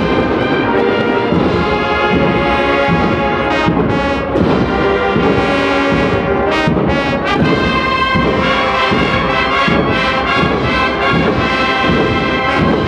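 A Spanish Holy Week marching band (agrupación musical) playing a processional march: trumpets and trombones with drums, held full and loud.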